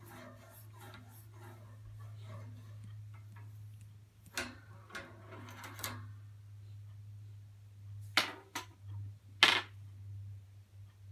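Rubbing and scratching against the wire bars of a pet crate, soft and rustling at first, then a few sharp rattling knocks of the wire, the loudest about nine and a half seconds in. A steady low hum runs underneath.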